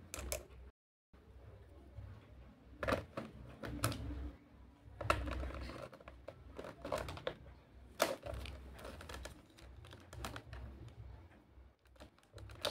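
Small hard plastic pieces clicking and tapping at irregular intervals as toy lollipop parts are fitted into the slots and onto the hook of a plastic toy candy cart.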